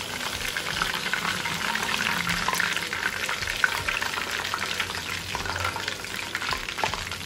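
Chicken kabab pieces deep-frying in hot oil in a steel kadai: a steady, dense crackling sizzle. The pieces are fully fried and ready to come out of the oil.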